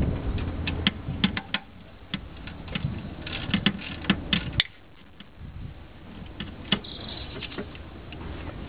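Ratchet wrench clicking in short, irregular runs as the upper intake plenum bolts are tightened down.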